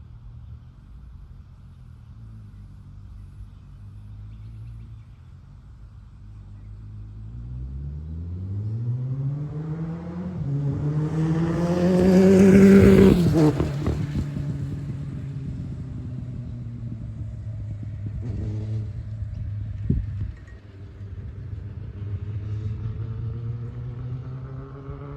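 Kawasaki ZX-9R inline-four sportbike engine on a test ride. It runs steadily, then revs up with a rising note to its loudest about 12 to 13 seconds in. The note then drops suddenly and settles, and rises again near the end.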